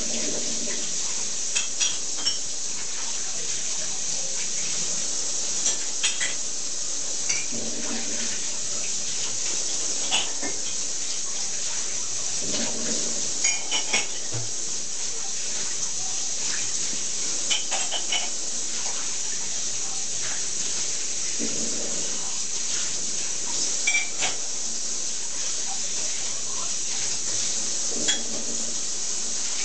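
Steady hiss with scattered light clinks and clicks, the sort made by dishes and cutlery being handled.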